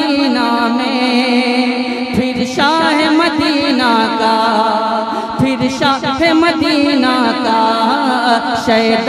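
A man singing a naat into a microphone in long, wavering held notes that slide between pitches.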